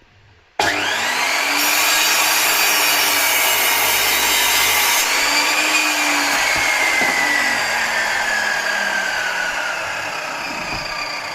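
Electric chop saw starting up suddenly with a rising whine, its blade cutting through a beech rolling pin for about three seconds, then the motor running down with a slowly falling whine.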